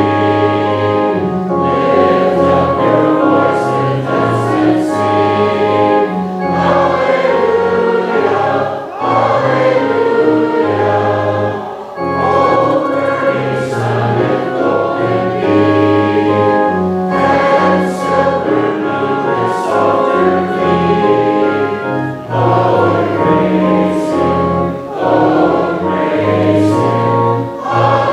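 A congregation singing the opening gathering hymn together, many voices in long held notes, with short dips between phrases.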